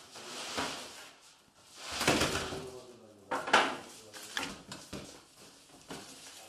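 Clatter of bread being taken from a wood-fired oven: knocks and scrapes as a long-handled peel goes in and out of the oven mouth and loaves are set down, with one sharp knock about three and a half seconds in.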